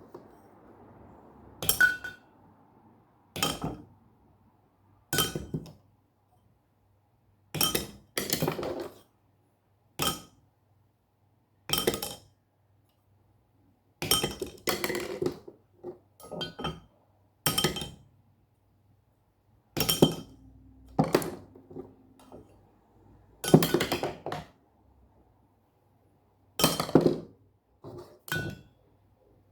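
Hard objects struck and clinking in an improvised sound piece, with irregular sharp strikes every second or two. Each strike rings briefly, some with a clear high tone, like glass or crockery.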